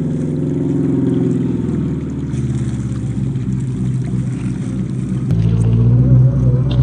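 Brushed 550 electric motor and gear drivetrain of a 1/10-scale RC crawler running under throttle: a steady, low, pitched whine that bends up and down in pitch, with an abrupt change in tone about five seconds in.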